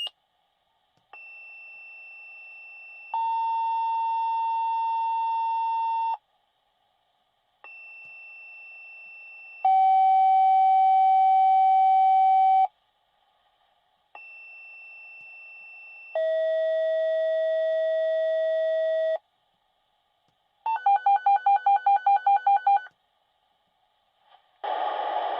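Fire department dispatch paging tones over the radio: three two-tone sequential pages, each a short higher tone followed by a longer, louder lower tone, with a different pitch in each pair. They are followed by a fast pulsing alert tone of about five beeps a second, then the dispatcher's voice begins near the end.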